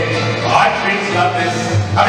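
Live mariachi band playing a medley of Jewish tunes, two trumpets playing over a steady bass line.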